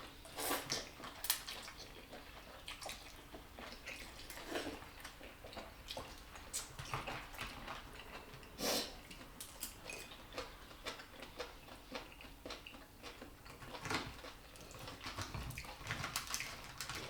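Eating sounds at the table: wet mouth and slurping noises with scattered light clicks of utensils against dishes, a few louder clinks about half a second in and near the middle.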